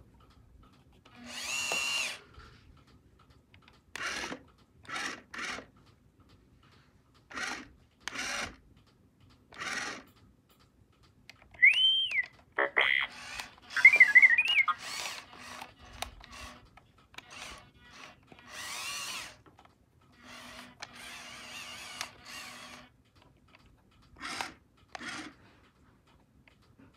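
Droid Depot R2-D2 toy droid's small electric motors whirring in short bursts, over a dozen times, as it drives and turns on carpet. About midway it gives a rising-and-falling electronic whistle, then a quick warbling run of beeps.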